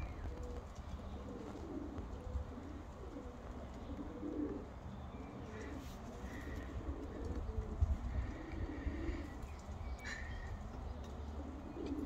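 Pigeons cooing again and again, with a few brief higher chirps from small birds about six and ten seconds in, over a low steady rumble.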